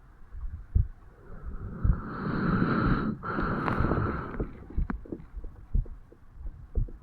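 A 35-year-old man's heartbeat recorded over the mitral valve area of the chest on waking: low thumps about once a second. From about two to four and a half seconds in, a louder rushing noise with a faint whistling tone covers the beats.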